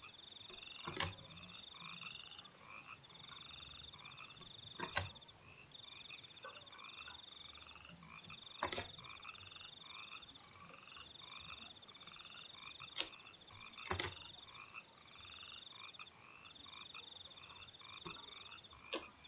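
Faint background chorus of frogs and insects calling: repeating high pulsed trills, each about a second long, over a steady high buzzing. About six sharp single mouse clicks come through it at irregular intervals.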